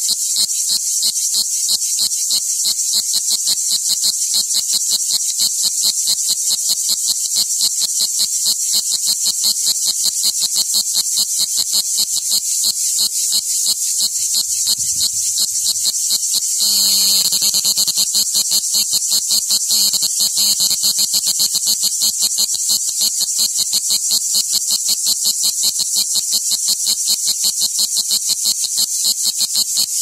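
Cicada singing its warming-up song: a loud, high-pitched series of rapid, evenly spaced pulses, which run together into a continuous buzz for about three seconds around the middle before breaking back into pulses.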